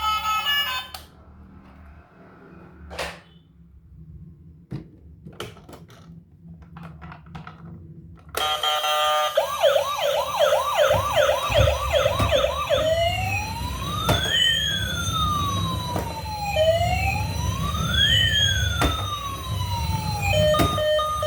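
A few faint clicks, then an electronic siren starts about eight seconds in: a fast yelp of two or three rising whoops a second, which after a few seconds changes to a slow wail that rises and falls about every four seconds, over a low rumble.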